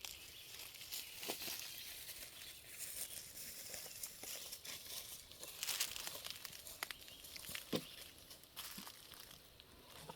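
Dry vegetation rustling and crackling as it is handled, with scattered sharp snaps and clicks.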